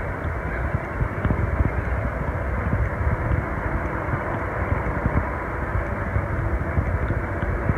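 Wind buffeting a phone microphone: a steady rush with dense, irregular low flutter from the gusts.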